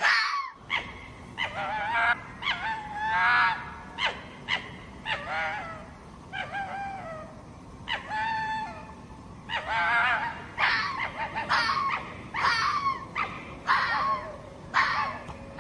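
Red fox calling: a series of short, high, hoarse yelping barks. They come irregularly at first and about one a second in the second half.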